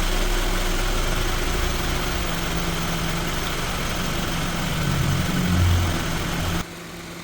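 Car engine idling steadily with a low, even hum, cutting off abruptly near the end.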